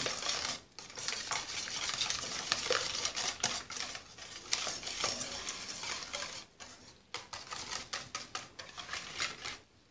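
Wire hand whisk beating eggs and sugar in a stainless steel bowl: fast, continuous scraping and clicking of wire against metal, easing off and getting quieter over the last few seconds.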